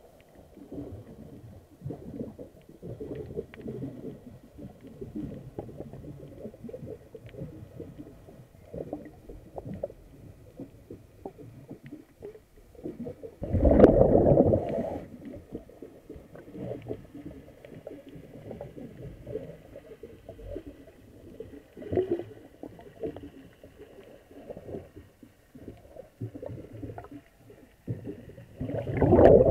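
Heard underwater: a diver's exhaled breath bubbles rumble loudly past the microphone about halfway through and again near the end, with a low, crackling water noise between.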